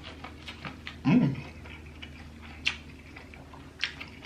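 Close-miked eating sounds: wet mouth clicks and smacking while chewing seafood, with one short hummed vocal sound about a second in.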